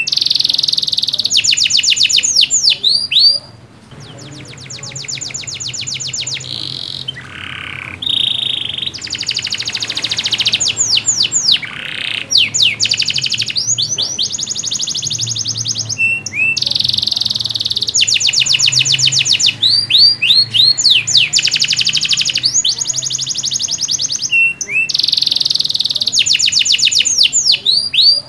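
Domestic canary singing a long, loud song of rapid rolling trills and sweeping whistled notes, in phrases broken by short pauses.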